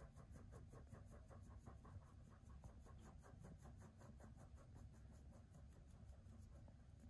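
Faint, rhythmic rustling of a flour sieve being shaken over a glass bowl, about four shakes a second, over a low steady hum.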